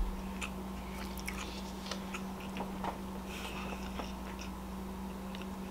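A person chewing food close to the microphone, with scattered small mouth clicks, over a steady low hum.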